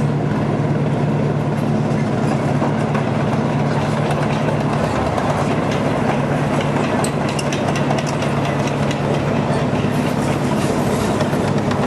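Panther tank's V12 petrol engine running steadily, with a rapid clatter building up over it from about halfway.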